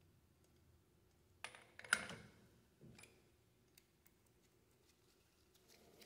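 A few small metallic clicks and taps, the two loudest close together about one and a half to two seconds in, as a cotter pin is pushed through the castle nut and spindle of a front wheel hub.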